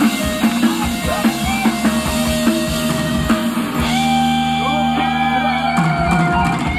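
Thai ramwong dance music played loud by a live band: a drum kit keeps a steady beat under a melody. About four seconds in, the beat thins out while held melody notes slide in pitch over a sustained low note.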